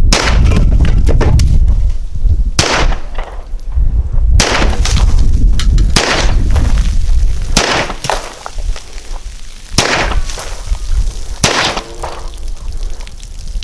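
9mm handgun firing about seven single shots, spaced a second and a half to two seconds apart, over heavy wind rumble on the microphone.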